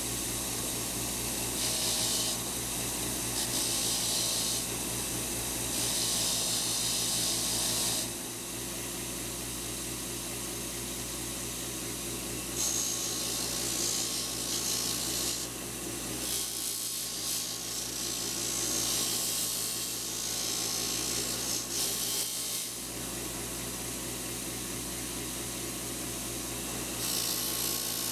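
Motor-driven wire wheel running steadily while rusty steel plier parts are pressed against it to strip the rust, giving repeated spells of high scratchy hiss over the motor's hum.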